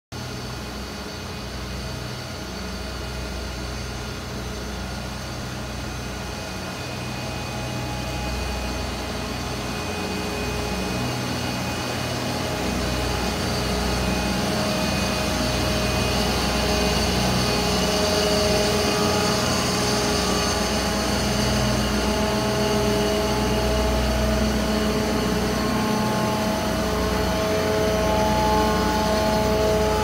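Dunham-Bush air-cooled screw heat pumps running, a steady machine hum from their screw compressors and condenser fans with several held tones over a low rumble. It grows louder over the first half as the units come nearer, then holds steady.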